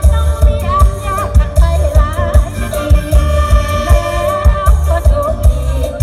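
Live luk thung–mor lam band music over a loud PA, with a steady heavy kick-drum beat under an ornamented lead melody.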